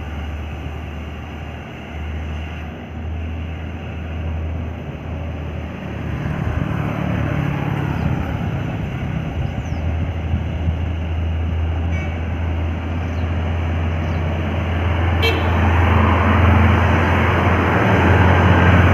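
Heavy truck's diesel engine pulling hard up a steep hill, a steady low drone that grows louder as it approaches. A single sharp click sounds about fifteen seconds in.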